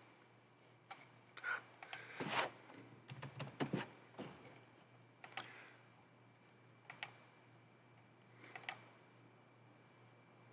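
Faint scattered clicks of a computer mouse and keyboard, several close together in the first four seconds, then a few single clicks, over a low steady hum.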